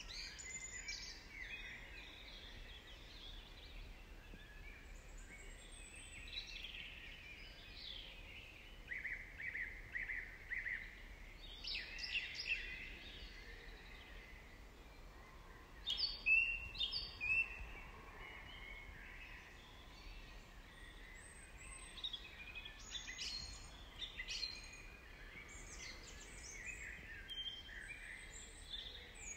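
Several birds singing and calling in short chirps and trills over a faint steady background hiss, with the loudest calls a little past halfway.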